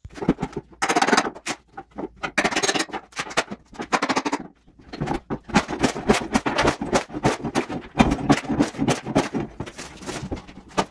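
Heavy pry bars tearing stapled underlayment up off a kitchen subfloor. Scraping and ripping come first, then from about halfway a rapid, irregular run of sharp cracks and knocks as the sheets are levered up and broken.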